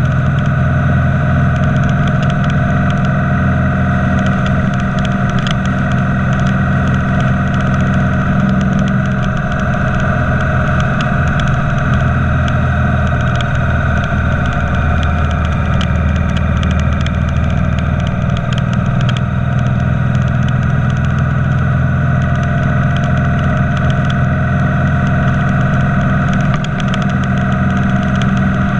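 Motorcycle engine and wind noise at a steady highway cruising speed: a constant drone with no change in pitch.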